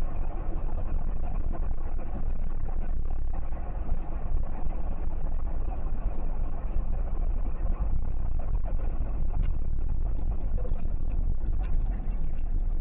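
Steady road and engine rumble of a moving car heard from inside the cabin, with a few faint clicks in the second half.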